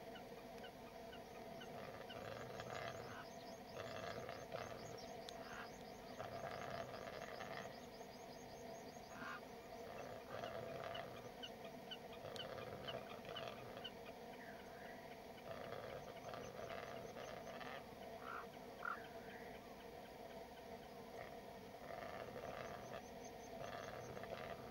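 Rackelhane, a male capercaillie × black grouse hybrid, displaying and calling: repeated hoarse calls and runs of rapid dry clicks over a steady lower sound.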